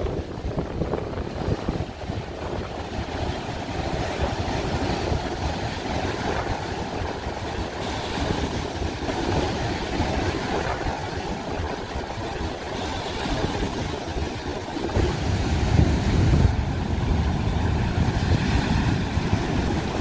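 Heavy sea surf breaking and foaming over boulders on a rocky shore, with strong wind buffeting the microphone. The low rumble swells for the last few seconds.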